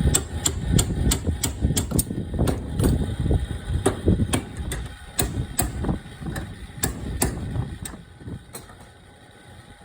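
Hammer striking metal over and over, about two or three sharp blows a second, straightening bent parts. The blows stop near the end.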